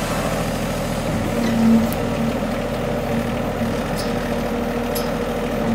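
Mini excavator's Yanmar diesel engine running steadily while its trenching bucket digs around a small tree's roots, with a few light clicks.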